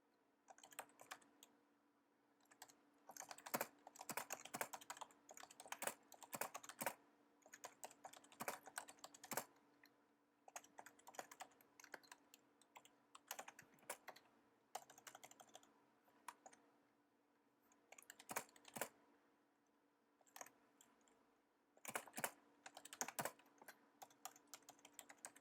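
Typing on a computer keyboard: irregular bursts of quick keystrokes with short pauses in between.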